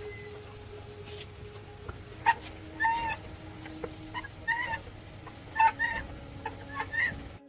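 Chickens clucking: a string of short, pitched calls, several in quick pairs, over a faint steady hum.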